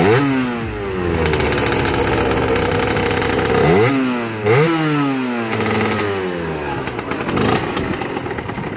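Sherco 50cc two-stroke motocross bike running through its stock exhaust. The throttle is blipped at the start, then twice more about four seconds in, the revs falling back to a steady idle after each.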